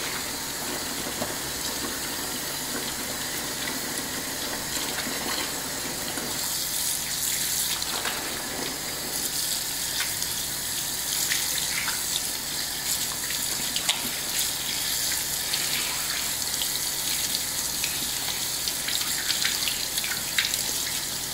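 Kitchen tap running into a sink in a steady stream, with a few light clinks.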